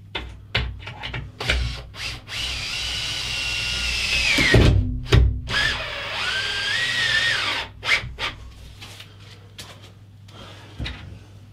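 Cordless drill-driver driving a screw in two runs of about two seconds each, the motor whine dropping in pitch as it slows near the end of the first run. Clicks and knocks of handling in between.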